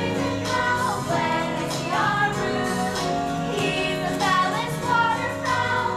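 Musical-theatre song: voices singing over an instrumental accompaniment that holds steady low notes.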